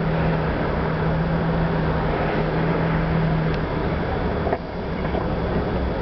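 A car driving slowly, heard from inside the cabin: steady engine and road noise with a low hum that breaks off about three and a half seconds in.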